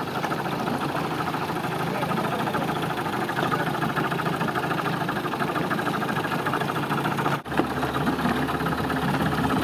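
A boat's engine running steadily with a fine, even pulse, briefly cut off about seven seconds in and then running on.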